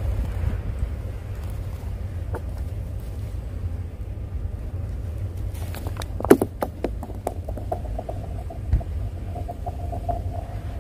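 A stone thrown onto thin river ice lands with a sharp crack about six seconds in and skips several times, then rolls and slides across the ice sheet with a steady, pulsing ringing hum. Wind rumbles on the microphone throughout.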